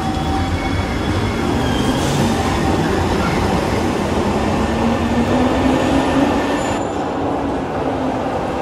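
Glasgow Subway train pulling out of an underground platform: wheels running on the rails, with a low motor whine that rises in pitch as it gathers speed. The high, hissing part of the noise drops away suddenly about seven seconds in as the train clears the station.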